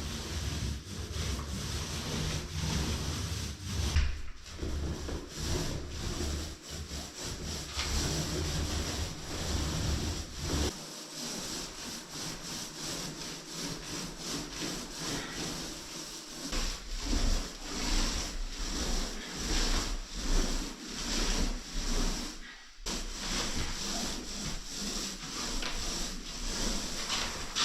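A paintbrush rubbing over wooden boards in repeated scratchy strokes, with a low hum underneath for the first ten seconds or so.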